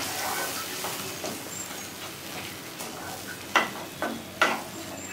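A wooden spatula stirring and scraping a frying masala in a non-stick kadai, the masala sizzling steadily, with a few sharp knocks of the spatula on the pan about three and a half to four and a half seconds in.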